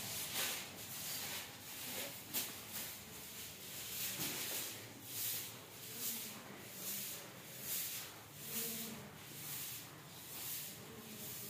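A long-bristled hand broom sweeping a stone-tiled floor, swishing in regular strokes about one to two a second.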